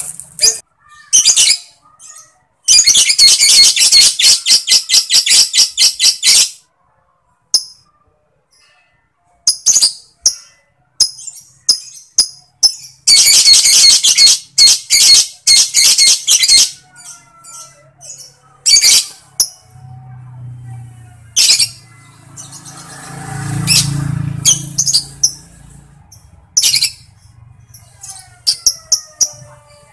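Lovebird song: two long, very fast chattering trills (ngekek), each lasting about four seconds, one near the start and one in the middle, with short sharp chirps scattered between and after them.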